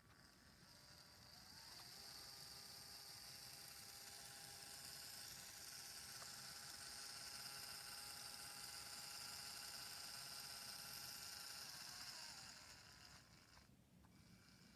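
A faint whir of a small motor or fan, spinning up about a second and a half in, running steadily, then winding down near the end.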